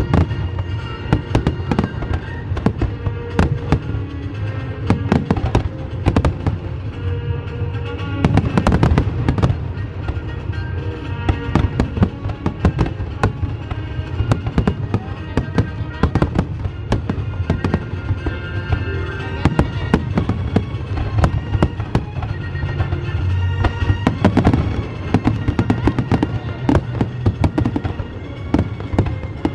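Fireworks display with rapid, continuous bangs and crackles, many bursts a second, over music with held tones.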